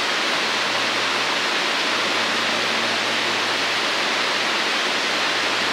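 Steady, even rushing noise with a faint low hum underneath, unchanging throughout.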